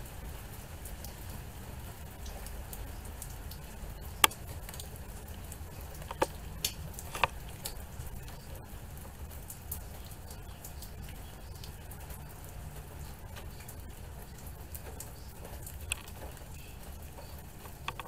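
Steady rain falling, with scattered sharp drips tapping close by. The loudest tap comes about four seconds in, then three more follow in a quick cluster around six to seven seconds.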